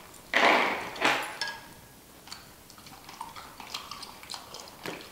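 Tableware and shell clatter from eating a seafood boil: two short rustling bursts in the first second and a half, then scattered small clicks and taps.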